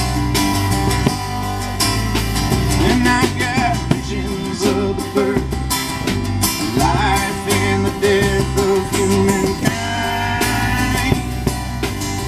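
A live country-rock band of banjo, acoustic guitar, upright bass and drum kit playing without words, over a steady drum and bass beat. A wavering held note rises above the band from about four to ten seconds in.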